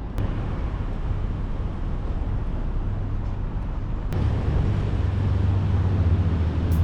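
Low, steady engine rumble from passing vehicles, growing louder about four seconds in.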